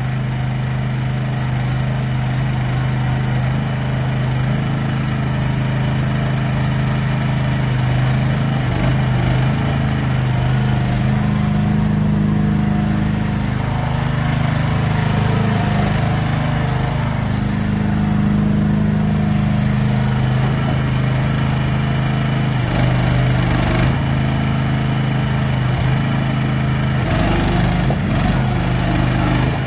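Small petrol engine of an AGT QH12R mini excavator running steadily, its note shifting slightly at times. Short spells of high hiss come and go, several times.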